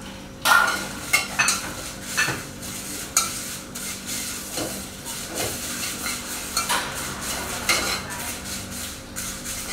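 A metal spatula scrapes and knocks against a dry metal wok in irregular strokes, turning dried chilies and salt as they dry-roast. A steady low hum runs underneath.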